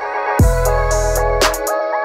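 Background music: sustained chords over a deep bass note that drops in about half a second in and holds for about a second, with a few crisp percussion hits.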